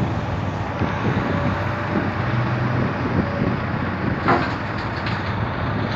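Diesel engine of a Komatsu PC200 hydraulic excavator running steadily as it works. About four seconds in there is a single sharp metallic clank as the bucket unloads over the steel bed of a Ford L9000 dump truck.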